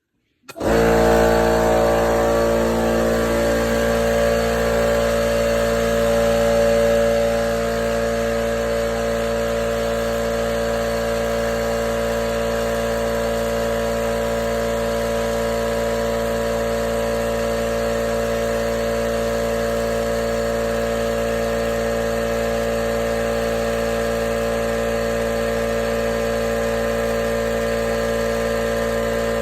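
A 21-gallon Harbor Freight air compressor switching on about half a second in and running loud and steady, its motor and pump a constant mechanical drone, about 82 decibels at six feet. It runs a little louder for the first several seconds, then settles to an even level.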